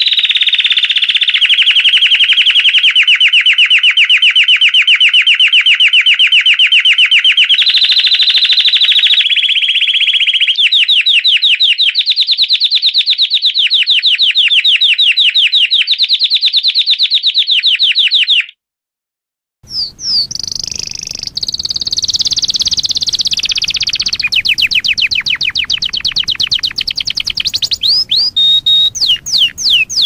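Domestic canary singing long, fast rolling trills, one run of rapid repeated notes after another. Past the middle the song stops for about a second, then starts again over a faint background hiss. Near the end it slows to separate gliding whistled notes.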